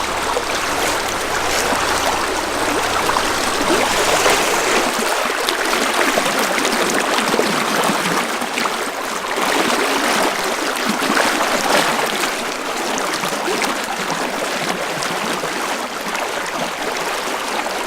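Creek water flowing, a steady rush that swells slightly now and then.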